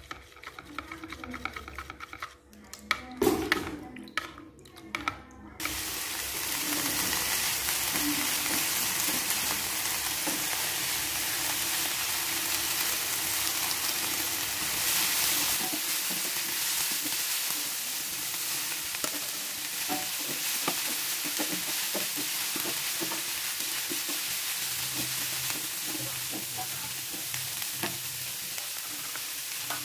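A metal spoon clinking and knocking in a bowl as a seasoning sauce is stirred, then, from about five seconds in, a steady sizzle of cabbage, chillies and fried tofu stir-frying in a wok, with a wooden spatula scraping and tossing them.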